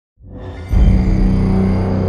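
Dark, suspenseful trailer-style music. After a brief silence a swell builds into a heavy low hit about two-thirds of a second in, which carries on as a deep, sustained drone.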